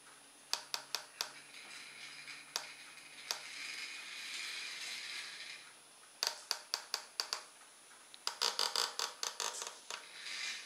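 Sharp clicks of the radio transmitter's trim switch being pressed, a few singly and then in two quick runs, while the servo modified for continuous rotation whirs in short spells as it swings the boat's recovery arm round in small steps.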